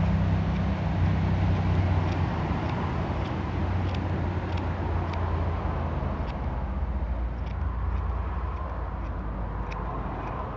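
Electric beard trimmer running close to the microphone, a steady low buzz that slowly fades, with faint ticks as it cuts through the beard.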